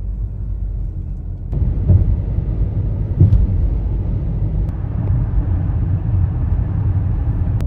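A car driving along a road: a steady low rumble of road and engine noise that grows louder and fuller about a second and a half in.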